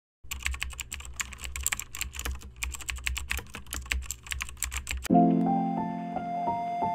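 Rapid, irregular clicking like typing on a keyboard, over a low hum, for about five seconds. Then the clicking stops and piano music starts.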